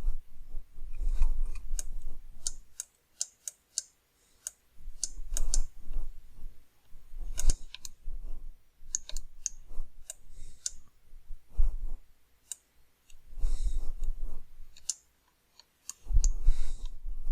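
Irregular clicking of a computer mouse and keyboard keys being pressed, with a few stretches of low rumble from the desk.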